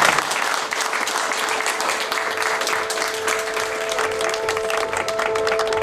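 A roomful of people applauding with steady clapping. Soft music with long held notes comes in underneath about two seconds in.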